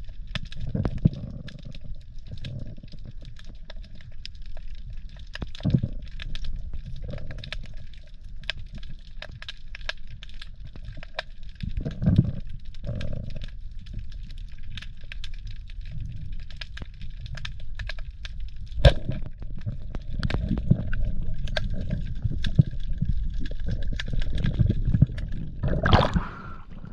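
Underwater sound heard through a camera housing: a muffled low rumble of moving water with a steady scatter of sharp clicks, then a splash near the end as the camera breaks the surface.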